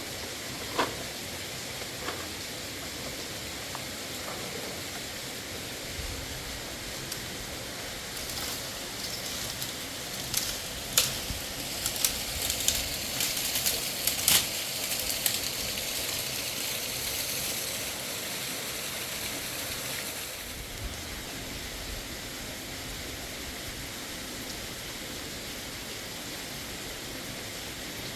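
Steady rush of flowing mountain water, with a run of sharp clicks and crackles over several seconds near the middle.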